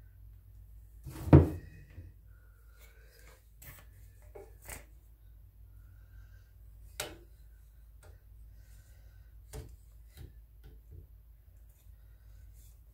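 Wooden clamps clacking and knocking as they are fitted and tightened one after another over a glue-up, with a loud knock about a second in, a sharp click about halfway through and a few lighter clicks and brief squeaks of wood rubbing on wood.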